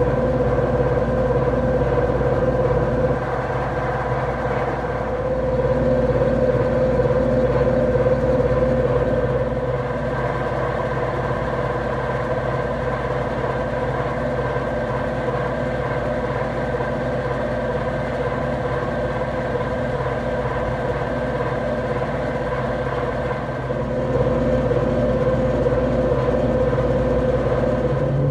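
Combine harvester running steadily while harvesting corn: a constant engine drone with a steady machine whine, easing a little through the middle and picking up again near the end.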